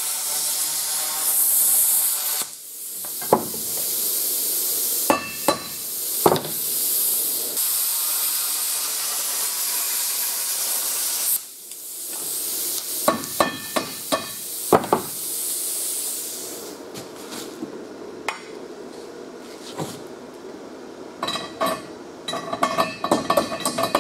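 Plasma cutter hissing as it cuts a hole through steel square tubing, with a few sharp knocks, cutting off suddenly about eleven seconds in. Near the end, light metal clinks as a threaded rod is fitted into the fresh hole.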